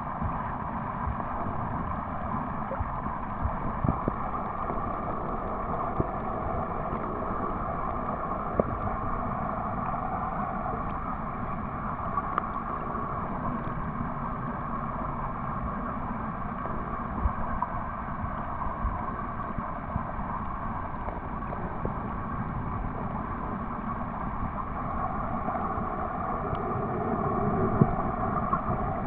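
Steady underwater noise picked up by a submerged camera: a continuous low rumble with a steady hum, and a few faint clicks, swelling slightly near the end.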